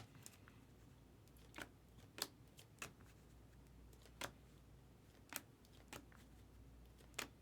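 Trading cards being handled and flipped through: a series of short, light clicks, about one every second.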